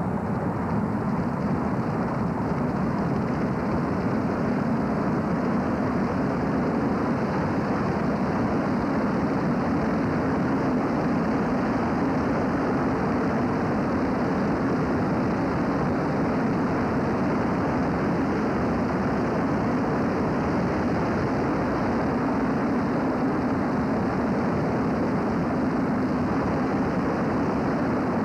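Steady driving noise of a car moving at road speed: engine hum mixed with tyre and wind noise in one even rush that does not change.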